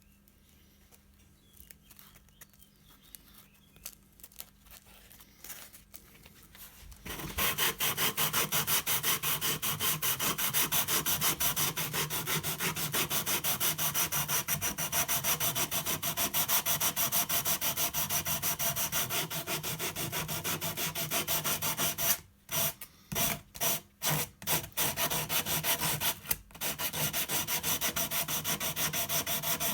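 Wood being sanded with rapid, even strokes. The sanding starts about a quarter of the way in after a few faint clicks, and stops briefly several times near three quarters of the way through.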